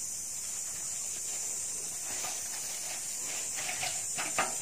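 A steady high hiss, with a few faint scratches of fingers working fertilizer granules into loose soil near the end and a short sharp tick just before it ends.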